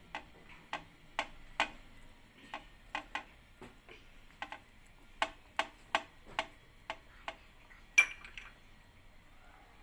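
Steel spoon clicking against bread and a ceramic plate while spreading butter on a bread slice: a string of sharp, irregular clicks about two or three a second, with one louder click about eight seconds in.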